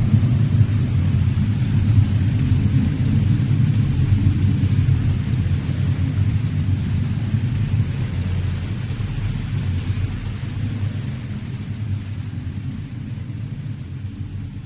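Deep, continuous rumbling sound effect with a hiss over it, like thunder, slowly fading toward the end: the rumble of the earthquake that follows the Buddha letting go of the life principle.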